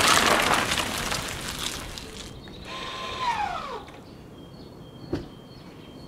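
Tesla Model 3 rolling in over paving stones and coming to a stop: the tyre noise fades over the first two seconds, then the electric drive motor gives a falling whine for about a second as the car slows. A single sharp click comes about five seconds in.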